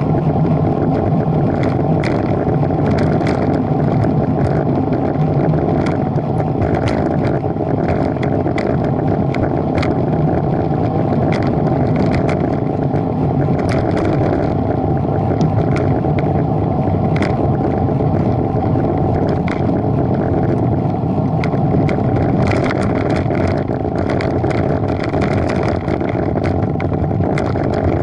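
Steady running noise of a vehicle cruising along a road, heard from a camera mounted on it: a constant low engine hum under road and wind noise, with frequent light clicks or rattles.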